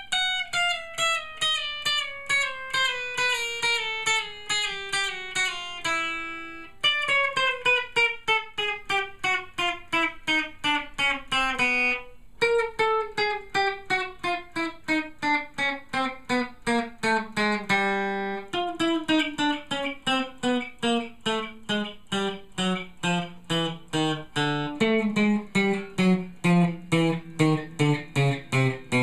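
Custom Telecaster electric guitar with Fender '62 reissue pickups, played clean as single picked notes, about three a second, in long runs that step down in pitch across the strings. The notes ring clearly without fret buzz, showing the neck plays cleanly.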